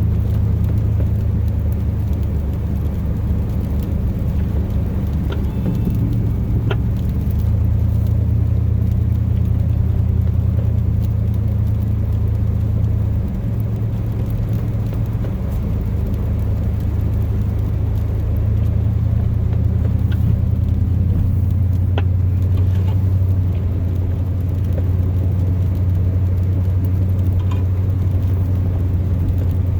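Chevrolet truck's 8.1-litre Vortec big-block V8 and drivetrain running steadily as the truck drives, heard from inside the cab as a low rumble. The engine note dips briefly about halfway through, and there are a few faint clicks.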